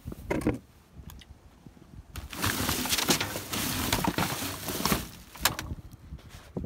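Salvaged junk being shifted around by hand: rustling and clattering of boxes, bags and tools. There is a knock about half a second in, a dense stretch of rustling and clunks from about two to five seconds, and another sharp knock soon after.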